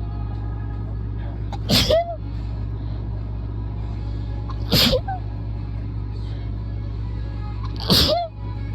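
A person sneezing forcefully three times, about three seconds apart, each one a sharp explosive burst ending in a short rising voiced tail.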